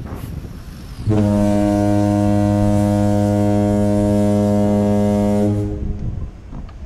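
A single long, steady, low-pitched horn blast, starting about a second in and cutting off after roughly four and a half seconds, over street traffic and wind.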